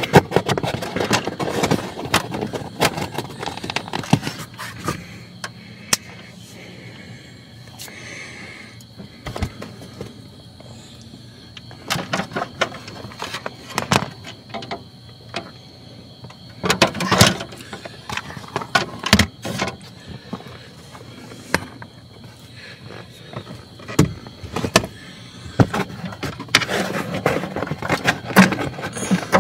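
Hands working plastic trim and a foam piece into place under a car's dashboard: scattered clicks, knocks and rubbing in bursts, with quieter stretches between them.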